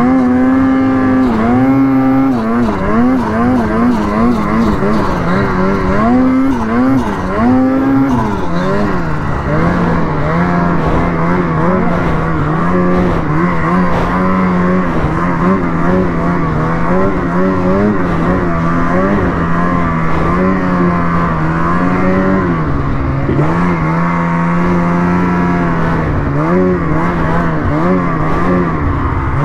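Ski-Doo Freeride 146 snowmobile's turbocharged two-stroke engine under way. Its pitch rises and falls with the throttle for the first several seconds, then holds a steadier, lower note with a few brief dips. This is a sled the owner says ran weird all day, ridden with the throttle held back for fear of a backfire.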